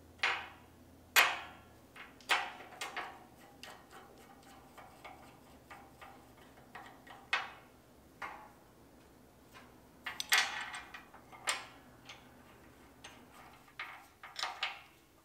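Sharp, irregular metal clicks and clinks as a brass branding-iron head with its steel backing plate is handled on a steel table and small screws are driven in with a screwdriver, with a cluster about ten seconds in and a quick run of clicks near the end.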